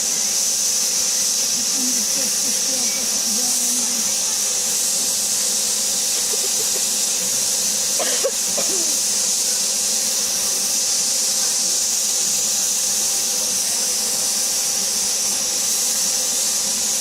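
Steady hiss of steam escaping from a 7.25-inch gauge live-steam model locomotive.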